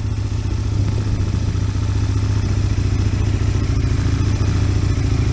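Aprilia RSV Mille 1000 V-twin engine running steadily through its exhaust, quite loud.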